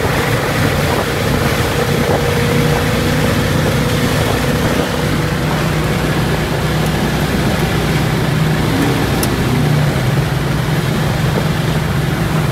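Steady road and wind noise inside a car cruising at highway speed with the side window down, with a low, even drone from the engine and tyres underneath.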